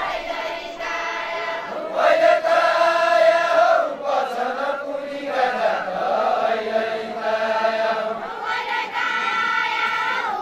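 A group of voices singing a Deuda folk song in unison, in long drawn-out phrases. The loudest phrase begins about two seconds in, and another swells up near the end.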